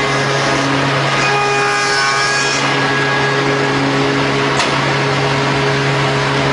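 A woodworking machine runs with a steady hum, its spinning red abrasive brush wheels working against the wooden piece. A single short click comes about four and a half seconds in.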